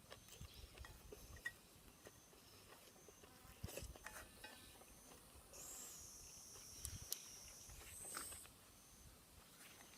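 Faint outdoor insect chirping: short high chirps repeating about once a second, with a longer high buzz in the middle, and a few light clicks.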